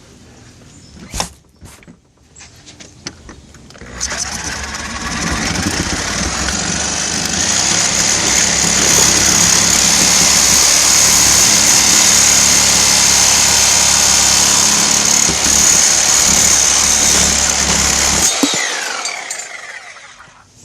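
A handheld power tool working through a metal door lock. After a few light handling clicks, it starts up about four seconds in and runs loud and steady under load for about fourteen seconds. It then shuts off and winds down with a falling whine.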